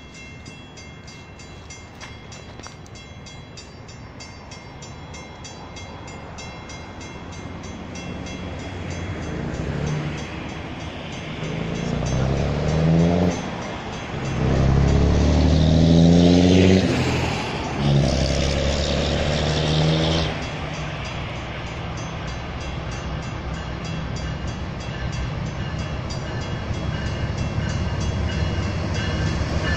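CSX freight train's diesel locomotive approaching, its air horn sounding three blasts, the middle one longest and loudest, over a rumble of engine and wheels that grows louder as the train nears.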